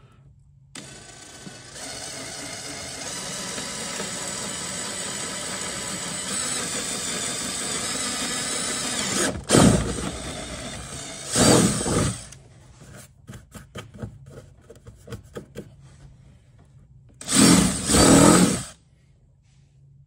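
Cordless drill boring a hole through a plastic kayak hull: the motor runs steadily for about nine seconds, then comes three short, louder bursts with a patter of clicks and knocks between them.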